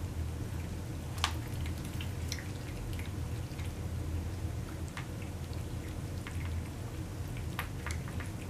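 Several cats eating wet food together from one shared plate: irregular wet smacking and chewing clicks, with one sharper click a little over a second in, over a steady low hum.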